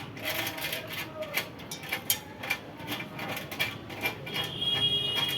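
Irregular metallic clicking and rattling of bolts and steel parts being handled and fitted on a platform weighing scale's support stand. A steady high-pitched tone comes in near the end.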